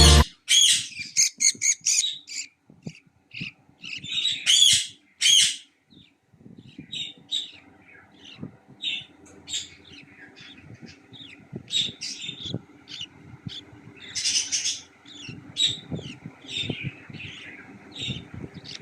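Budgerigars chirping and squawking in short, irregular calls, busiest and loudest in the first few seconds, with soft knocks and rustling underneath later on.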